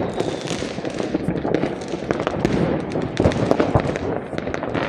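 Many fireworks going off at once: a dense, irregular run of bangs and crackles.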